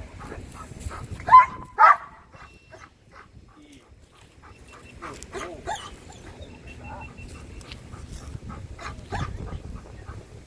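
A police dog barks twice, sharp and loud, about a second and a half in, followed by quieter scattered short sounds.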